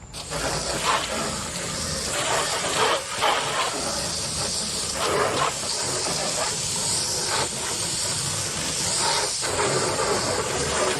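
Spray from a garden hose nozzle rinsing degreaser off a truck tool box: a steady hiss of water hitting the box that switches on suddenly and shifts as the spray is moved over it.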